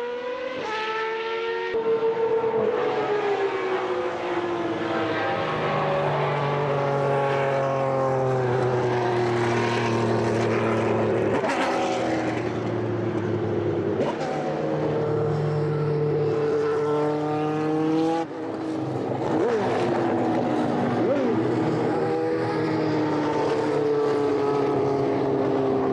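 Menard 4.2-litre V12 engines of Superleague Formula Panoz DP09B single-seaters running on track, their high-pitched note falling and rising again and again as the cars pass, brake and accelerate through the gears, with more than one engine heard at once.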